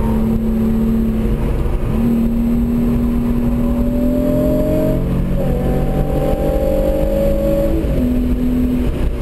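Hyundai Genesis Coupe 3.8's V6 engine heard from inside the cabin, pulling under hard acceleration with its pitch climbing steadily, stepping up again about halfway through, then dropping near the end as the throttle comes off.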